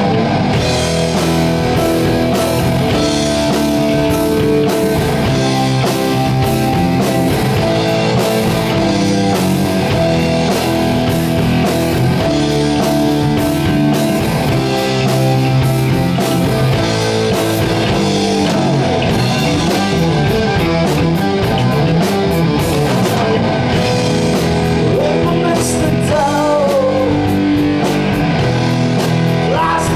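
Rock music: an electric guitar played over a steady drum beat, with bending melodic lines coming in near the end.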